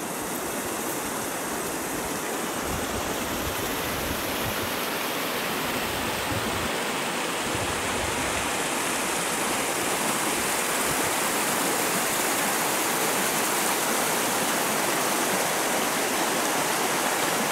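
Rushing river water with a small cascade, a steady even rush that grows slightly louder toward the end.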